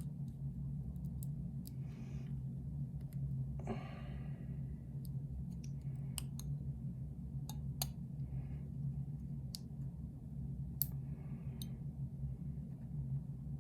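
Small sharp metallic clicks and taps, scattered irregularly, as a picked lock core and a shim are handled while the shim is readied for insertion. There are a few brief soft rustles and a steady low hum underneath.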